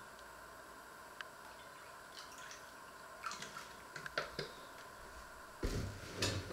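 Dish soap squeezed from a plastic bottle into a steel bowl of water, with faint dripping, squishing sounds. A few light clicks follow, then two louder thuds near the end.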